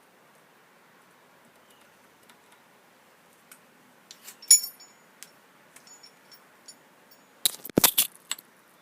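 Small metal hardware and tools being handled: one sharp, ringing clink about halfway through, a few light ticks, then a quick run of louder knocks and clinks near the end.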